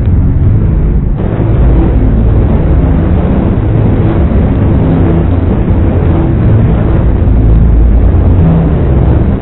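Loud, distorted saw sound effect processed with flanger and chorus, heard as a dense low noise with pitched drones that shift in pitch every second or so.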